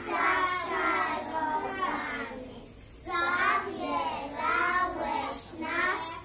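A group of young children singing together, with a short break about two and a half seconds in before the singing resumes.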